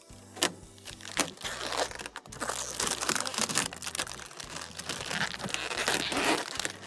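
Plastic protective film being peeled off a new dryer control panel, crinkling and crackling with sharp snaps, busiest in the second half.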